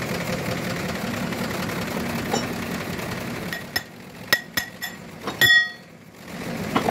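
A hammer strikes the steel differential case and carrier several times in quick succession, sharp metal-on-metal blows that seat the case half onto the ring gear. The last and loudest blow rings on briefly. A steady engine-like hum runs underneath before the blows.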